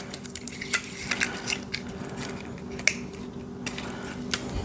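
Small clicks, taps and light crinkling from handling a spool of welding wire, with its paper wrapping and tape being peeled off.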